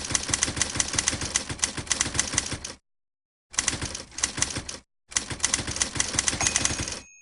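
Typewriter typing: a fast, continuous run of key strikes that stops dead twice for a moment. A short ringing tone sounds near the end.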